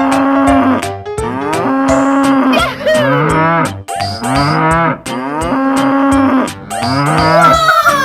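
Cartoon cow moos repeating about once a second, over music.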